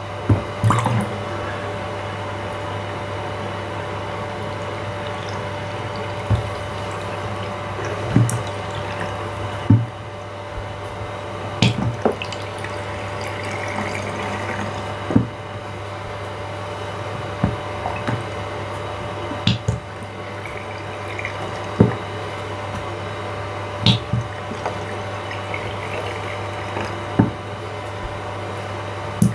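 Spring-loaded pop-up bath plug being pushed shut and popped open again and again, each press a sharp click, about one every two seconds, over a steady background hum.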